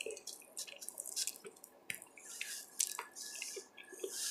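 Close-miked mouth sounds of someone eating: a string of soft wet clicks and smacks as she chews.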